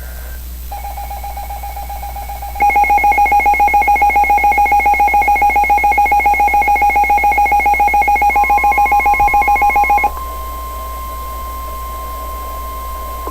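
Rapid pulsing two-tone electronic alert beeping, about seven beeps a second, soft at first and then much louder about two and a half seconds in, stopping about ten seconds in. Near the end it is overlapped by a steady single tone, the NOAA Weather Radio 1050 Hz warning alarm tone that comes ahead of a warning message.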